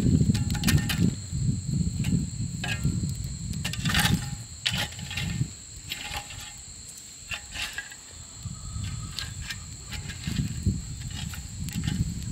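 Metal spade scraping and clinking through ashes and coals in a stone fire ring, with irregular sharp scrapes and knocks. A steady high insect trill runs underneath, and a low rumble is heard at the start and again near the end.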